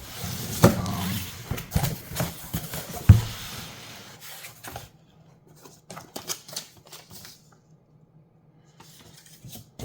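Cardboard shipping box being handled and opened: scattered rustles and clicks, with one louder knock about three seconds in, then only sparse, quieter clicks.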